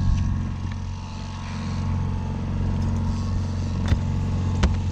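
Fishing boat's engine running steadily at trolling speed, a constant low hum, with two sharp knocks near the end.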